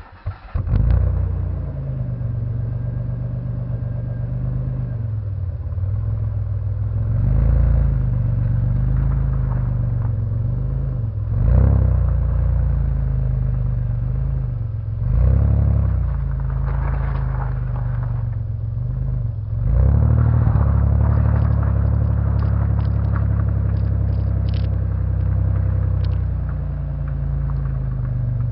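Pontiac car engine starting and then running through a stainless steel exhaust, idling with a few short revs.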